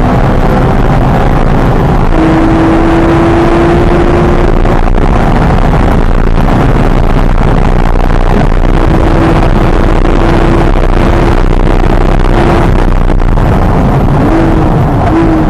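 Porsche 911 GT3's flat-six engine running at high revs under load, heard loud from inside the cabin together with road and wind noise. The engine note holds steady for long stretches, with a couple of quick pitch changes near the end.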